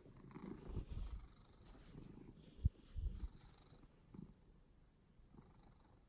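Domestic cat purring, with a few low thumps, the sharpest a little under three seconds in.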